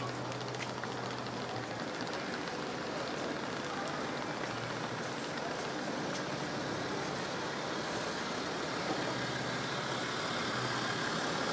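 City street ambience dominated by steady motor traffic: passing cars and a low engine hum, growing slightly louder toward the end.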